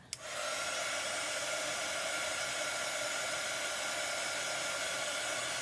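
Handheld electric dryer blowing steadily on freshly applied chalk paste to dry it: a constant rush of air over a steady motor hum, switched on abruptly at the start and running unchanged until it stops at the end.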